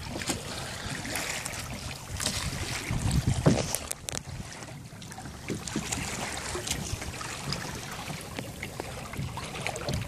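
Water lapping and splashing against the hull of a Hobie Outback pedal kayak under way, with wind buffeting the microphone; the buffeting is loudest about three seconds in.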